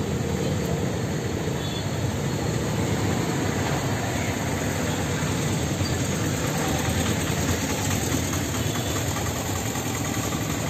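Steady street traffic noise: vehicle engines running, with no single event standing out.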